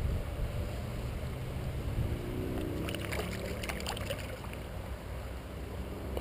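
Low, steady rumble of flowing river water and wind on the microphone. About three seconds in comes a brief burst of splashing as a small trout is handled at the water's surface.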